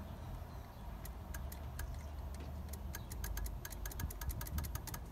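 A run of light, sharp clicks from the Mazda Miata's cooling fan relay as the TFA terminal on the diagnosis connector is jumpered to ground. The clicks come a few at a time at first and then several a second from about halfway through.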